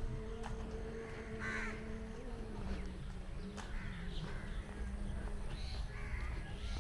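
Crows cawing repeatedly, a short harsh call every second or so, over a low outdoor rumble.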